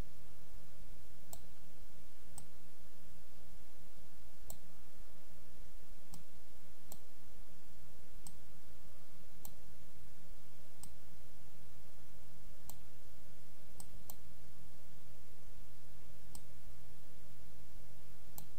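Computer mouse button clicking, a dozen or so separate sharp clicks spaced about one to two seconds apart as path anchor points are placed in GIMP, over a steady low hum.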